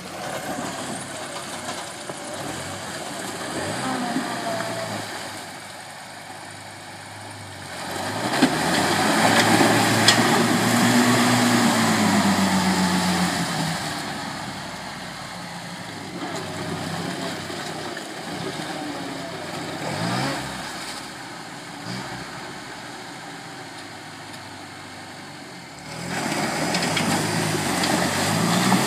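Land Rover Series 4x4's engine running as it crawls off-road through mud, revving up and down; it is loudest from about eight to fourteen seconds in and again near the end.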